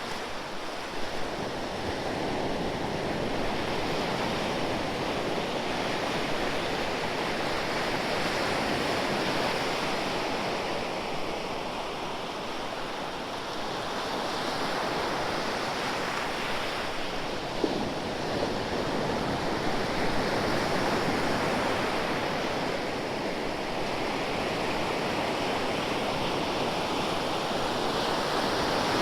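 Ocean waves washing in and breaking on a shore, a steady rush of surf that swells and eases every few seconds, with one short click about two-thirds of the way through.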